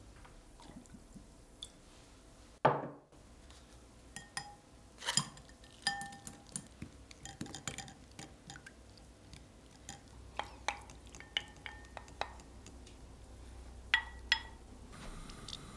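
Light clinks and taps of a fine-mesh metal strainer and a wooden spoon against a glass bowl as fish roe is rinsed in water. A louder single knock comes about three seconds in, and two sharp clinks near the end.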